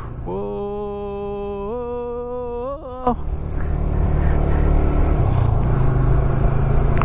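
A long held chanted note, stepping up in pitch twice and cut off sharply after about three seconds, over a motorcycle engine running with wind noise. The motorcycle engine then runs on alone, getting louder.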